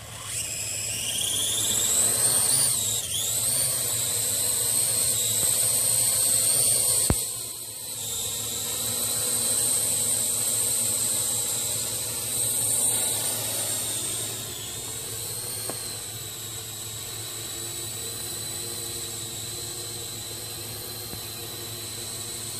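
Parrot AR.Drone 2.0 quadcopter's electric motors and propellers whining as it lifts off. The high whine rises in pitch at the start and wavers, then holds steady, growing fainter after about 14 seconds as the drone flies away.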